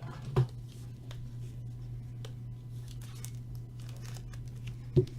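Trading cards being handled with light rustling and crinkling, with two short knocks about half a second in and near the end, over a steady low hum.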